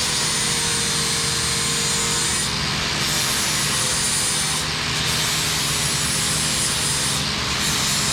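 Steady workshop machinery and power-tool noise: a constant low hum under a dense hiss, with a faint high whine that dips every couple of seconds.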